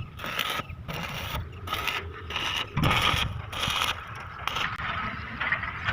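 Metal door lock being worked, with repeated short metallic scraping and clicking strokes separated by brief gaps.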